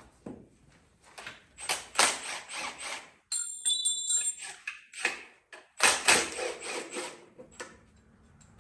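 Clicks, knocks and clinks of metal tools and engine parts being handled on an engine bench, in several quick clusters, with a brief high steady tone about three and a half seconds in.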